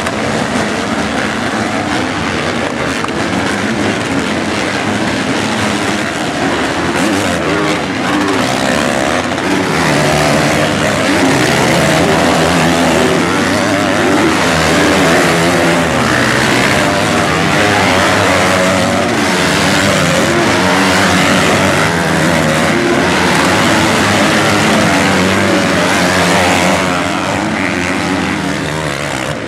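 A pack of motocross bikes racing, their engines loud and continuous, revving up and down as the riders accelerate and shift. The sound grows louder from about ten seconds in as more bikes pass close by.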